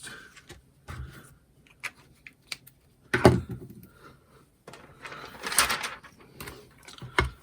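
Paper-craft supplies handled on a tabletop: scattered clicks and knocks, the loudest about three seconds in, and a rustling scrape of paper or card around five to six seconds.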